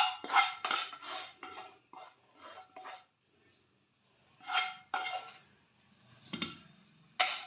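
A metal spoon scraping and knocking against a metal cooking pan, with a faint ring, as the thick cooked ginger-candy mixture is worked in it. There is a run of quick strokes, a pause of about a second and a half, then a few more separate strokes.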